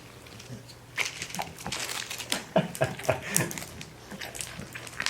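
Irregular crackling and crunching clicks as a bag of cereal puffs is handled and the puffs are chewed. A few brief low animal sounds come in the middle.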